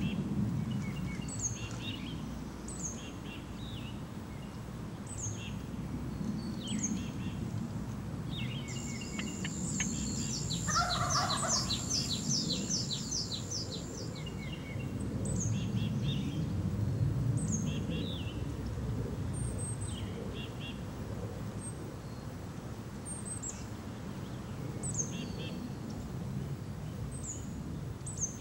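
A Merriam's wild turkey gobbler gobbles once, a short rattling call about ten seconds in. Through it all, a small songbird repeats a thin high chirp every second or two, and another bird gives a rapid high trill around the gobble.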